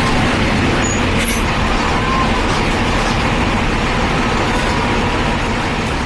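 Mercedes-Benz diesel bus engine running steadily and loudly.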